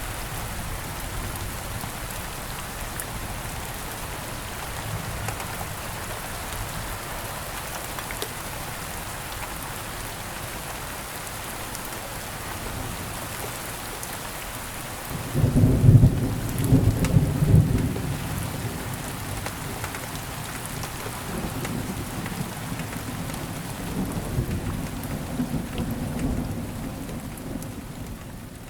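Steady rain falling, with a sudden loud thunderclap about halfway through that rumbles on for a few seconds. A quieter roll of thunder follows near the end as the whole sound fades out.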